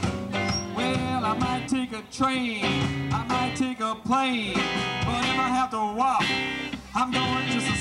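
A live band playing: electric guitar over upright bass and drums, with bending, sliding lead notes.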